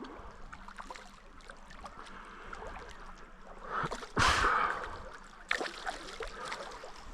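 Creek water running steadily, with a short, louder rush of noise about four seconds in and a few light knocks.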